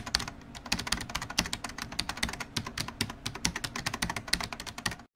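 Computer keyboard typing sound effect: a fast, irregular run of key clicks, several a second, that stops suddenly near the end.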